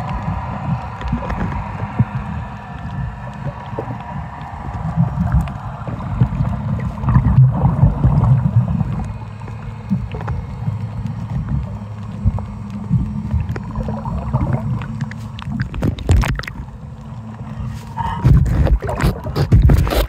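Muffled underwater sound from a camera held below the surface: a heavy, uneven water rumble with gurgling. Near the end come several sharp splashes and knocks as the camera is handled.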